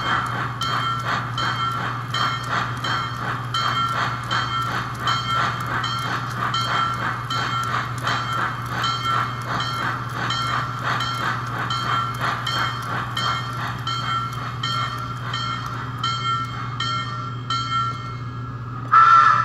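Digital steam-chuff sound from a sound module and speaker added to a 65-year-old American Flyer toy steam locomotive, chuffing in an even rhythm in step with the driving wheels (four chuffs per wheel revolution, synchronized with the smoke unit) over a steady low hum. The chuffs slow down near the end and stop, and a louder tone comes in at the very end.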